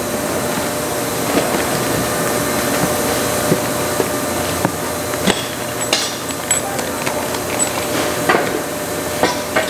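Parts being handled on a metal workbench: scattered short clicks and clinks over a steady background hum, with a plastic bag crinkling near the end.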